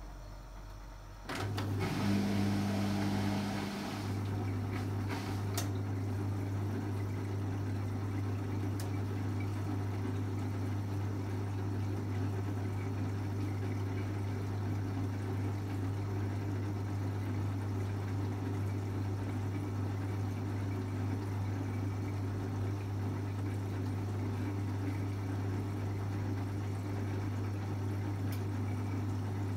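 Beko BKY 2317 B washing machine's drain pump switching on about a second in: a burst of rushing water for a few seconds, then a steady low electric hum as the pump runs on.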